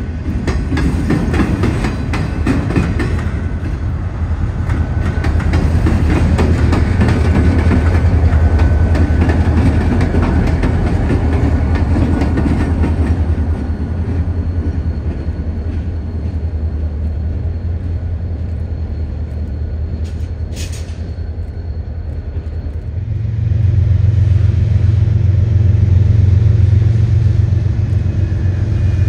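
Freight train of autorack cars rolling past, with a heavy rumble and the clack of wheels over rail joints. About halfway through it quietens to a steadier diesel locomotive hum, with one sharp click a little after two-thirds of the way in. Near the end a louder, deeper diesel engine drone comes in as an approaching locomotive draws near.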